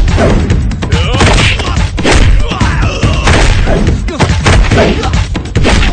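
Film fight sound effects: heavy punch and body-hit thuds landing about two a second over loud action background music.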